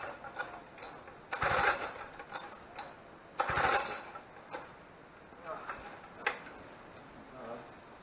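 Two-stroke minibike engine being pull-started: short whirring pulls about two seconds apart, the engine turning over without catching, with a few sharp clicks between. With the decompressor removed, each pull is made from top dead centre.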